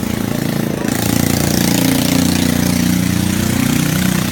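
An engine running, its pitch rising and then falling.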